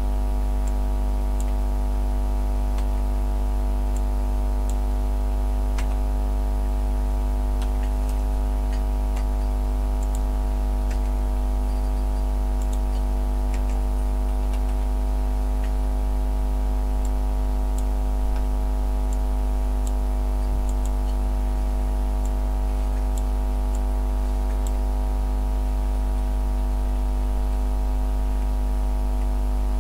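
Steady, unchanging low hum made of several even tones, with faint scattered ticks.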